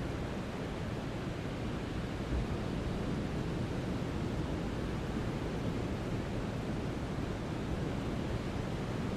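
Steady brown noise: an even, deep rushing hiss weighted toward the low end, with no changes or events.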